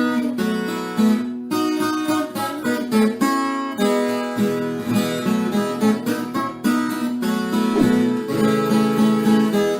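Instrumental moda de viola: an acoustic plucked-string instrument playing a run of picked and strummed notes.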